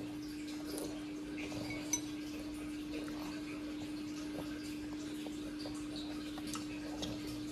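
Dishes and cutlery clinking lightly and now and then during a meal at the table, with one sharper clink about two seconds in. A steady hum runs underneath.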